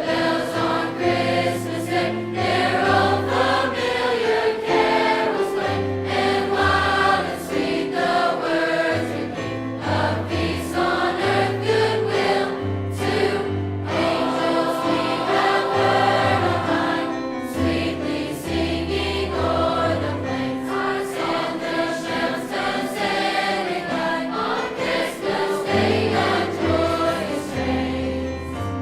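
Large high school choir singing a Christmas song in many parts, over an accompaniment with a line of low held notes underneath.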